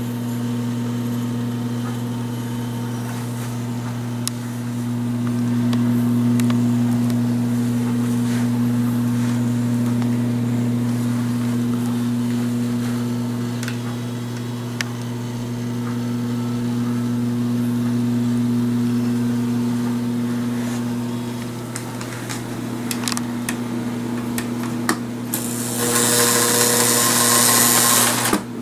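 Marx 333 toy steam locomotive and passenger cars running on O-gauge tinplate track: a steady electric hum with scattered clicks of wheels over rail joints and switches. Near the end a much louder rushing clatter sets in as the train comes close.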